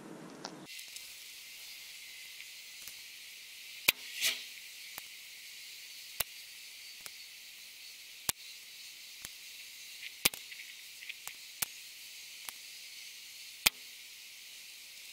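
Faint steady hiss with scattered sharp clicks at irregular intervals, the loudest about four seconds in and again near the end.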